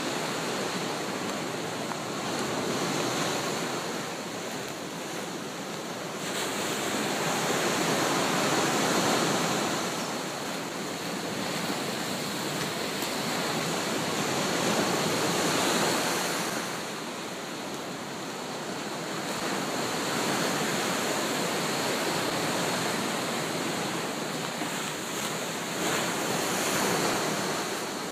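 Sea surf breaking on the beach below the cliff: a continuous rushing wash that swells and eases every several seconds as each wave comes in and draws back.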